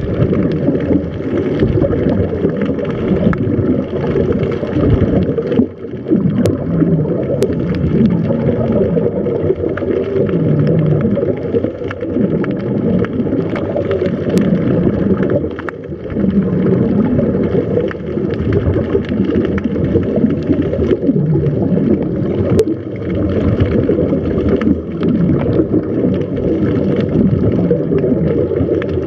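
Muffled underwater noise with the gurgling of scuba regulator exhaust bubbles, dull and heavy in the low end.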